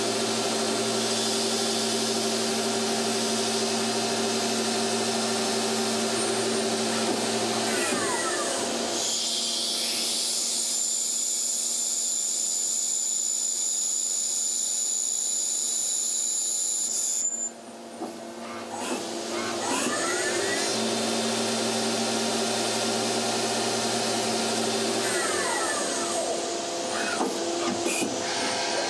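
Miyano BNA42MSY twin-spindle CNC lathe machining a part: a steady spindle and cutting whine, with the pitch sweeping up and down several times as the spindles change speed. A thin high whine runs through the middle stretch while a drill works, then the sound drops out briefly about seventeen seconds in.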